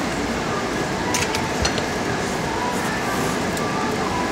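Steady restaurant room noise, with a few light clinks of tableware about a second and a half in.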